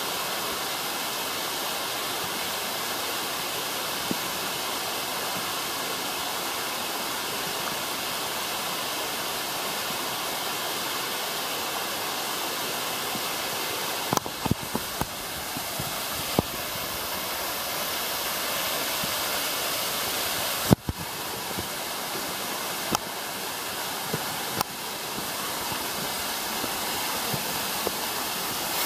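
Steady rushing of a small waterfall spilling over a rock ledge. From about halfway, scattered knocks and bumps of the camera being handled join in, one sharp knock standing out.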